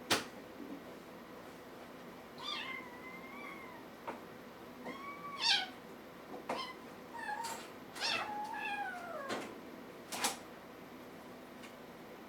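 Kitten meowing: about five high calls in a row between two and nine seconds in, with a few sharp clicks or knocks in between.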